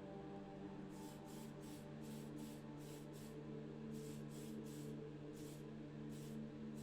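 Aerosol can of grey primer spraying in short hissing bursts, a few a second with brief gaps, over a steady low hum.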